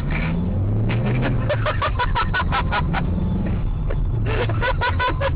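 Car engine pulling away from a near standstill, its pitch rising gently. Over it, a person's voice breaks out in quick repeated bursts, about five a second, twice.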